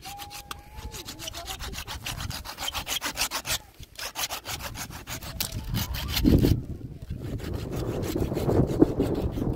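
Wood being sawn by hand with quick, even strokes for about six seconds, then a heavy thump and a rougher scraping, rubbing sound.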